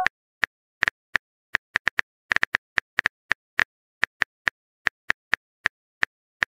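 Smartphone keyboard typing sound effect: short, sharp tap clicks, about four a second at an uneven pace, one for each letter of a text message being typed out.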